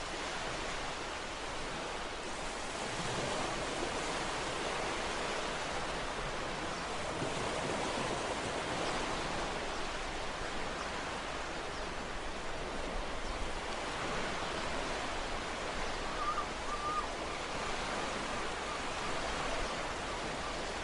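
Ocean surf washing onto a shore: a steady hiss of breaking water that swells and eases slowly.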